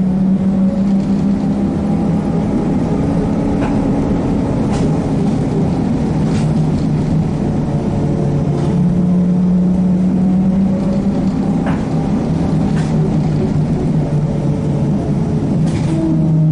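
Inside a ZiU-682G-016.02 trolleybus on the move: a steady low hum from the running gear, with a fainter whine that slowly rises and falls as the speed changes. A few short clicks and rattles come from the body.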